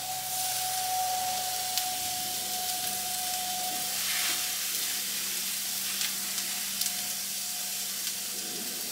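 Skirt steak sizzling as it is laid onto the hot grates of a wood-and-charcoal-fired Santa Maria grill, with a few light clicks. A faint steady tone fades out about four seconds in.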